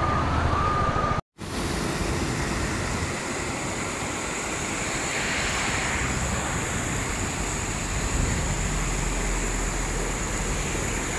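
Steady rush of water from an overflowing lake cascading down a rocky stream channel. A steady whistle-like tone sounds for about the first second before the sound cuts out briefly.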